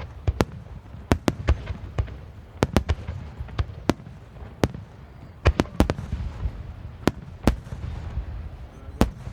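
Aerial fireworks shells bursting overhead: a rapid, irregular series of sharp reports, some in quick clusters, over a continuous low rumble of echoing booms.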